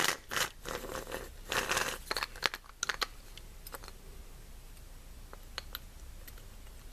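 Small plastic planetary gearbox of an autopilot drive unit, turned by hand with a hex key. It gives a rough, gritty grinding for about the first two seconds, then a few light clicks. The grinding is the gearbox noise the owner is tracing, and he is unsure whether it comes from wear or from the light machine oil it runs on.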